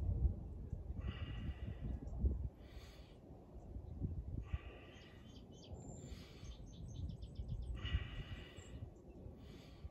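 A person breathing out hard through the nose in a steady rhythm, one breath about every second and a half, with each twist of a standing torso-rotation stretch. Low wind rumble on the microphone runs underneath, and a bird gives a short trill near the middle.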